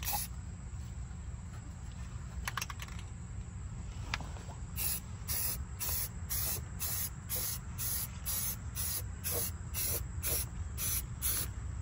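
Aerosol spray-paint can hissing in short bursts, about two a second from around five seconds in, as black paint is dusted onto a car's front cross member and frame, over a steady low hum.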